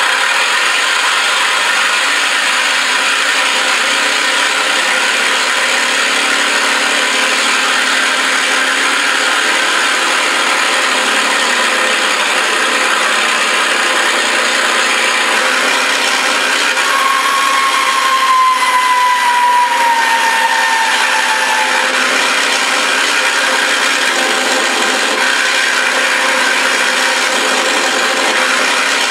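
Simulated warbird piston-engine sound from a Mr RC Sound V4 system in an FMS P-51B electric model, played through the model's small speaker with no deep bass, running steadily. For a few seconds past the middle, a thin whine slides down in pitch over it.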